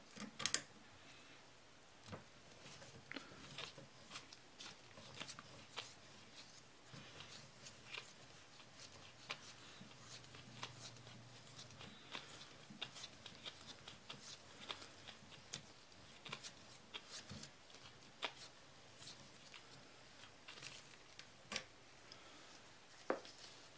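Quiet, irregular metallic clicks and scrapes of a hand-turned barrel lug cutter worked through the slide-stop hole of a 1911 frame, shaving the barrel's lower lugs to fit the frame.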